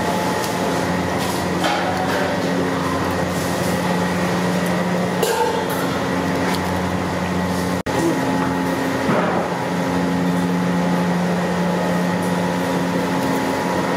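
Steady low mechanical hum of a running motor, with a few faint clicks and knocks over it; the sound cuts out for an instant about halfway through.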